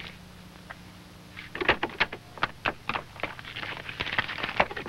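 A run of irregular sharp clicks and knocks, as objects are handled on a desk, starting about one and a half seconds in over a low steady hum.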